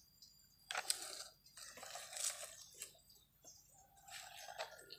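Faint gritty crunching and scraping on gravelly dirt, in three or four short spells, the first starting sharply about a second in.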